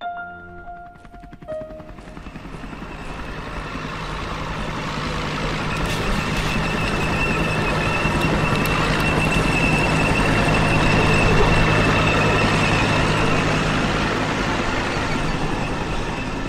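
Military helicopter engine and rotors running, with a steady low hum and a high turbine whine. It swells louder over several seconds, then eases off slightly near the end.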